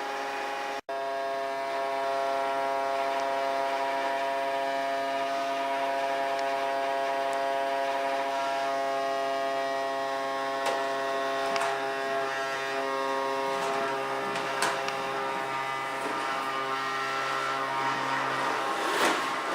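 Small vacuum cleaner motor running steadily with a buzzing hum, with a few sharp knocks as the nozzle bumps things about halfway through.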